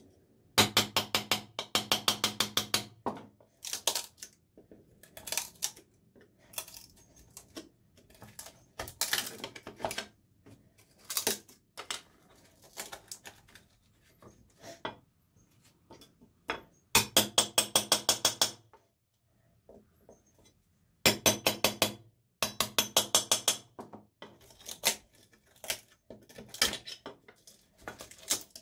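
Bursts of rapid scraping and clinking strokes from a screwdriver worked against the wooden handle scales and steel tang of an old meat axe as the handle is pried and scraped off, with quieter pauses between bursts.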